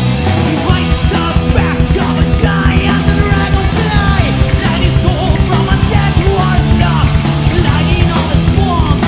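Heavy metal band playing live: distorted electric guitars, bass and drums with a steady beat of drum hits, and a male lead vocalist singing over them.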